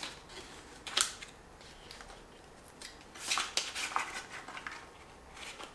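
Small paperboard playing-card box being handled and opened: one sharp click about a second in, then a run of short, crisp papery clicks and scrapes around three to four seconds in.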